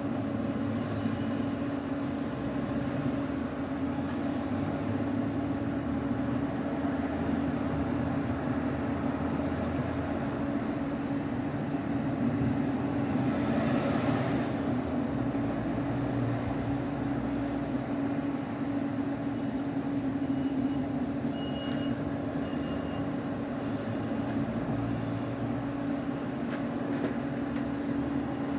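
LUD-200 ultrasonic drilling machine running steadily with a constant hum, with a brief hissy swell about midway.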